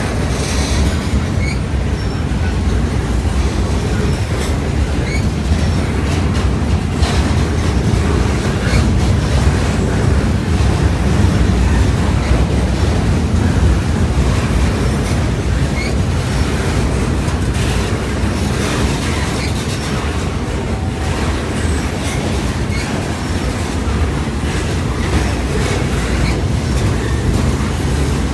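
Norfolk Southern freight train's gondola cars rolling past: a steady loud rumble of wheels on rail with clacks over the rail joints and brief faint wheel squeals now and then.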